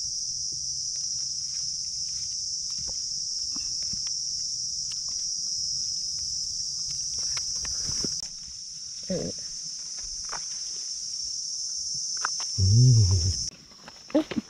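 Steady high-pitched insect chorus from the forest, thinning about eight seconds in and changing again near the end. Light footsteps and rustling sound among the leaf litter, and a short voiced exclamation comes twice in the second half, louder near the end.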